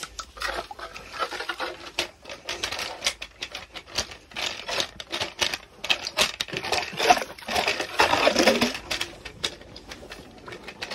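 Crunching and scraping of snow and ice around a freshly drilled ice-fishing hole as it is cleared by hand, a dense run of quick clicks and scrapes.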